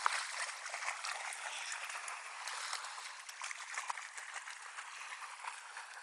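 Dog splashing through shallow river water, a dense crackle of splashes that begins with one sharp splash and slowly fades as the dog moves away.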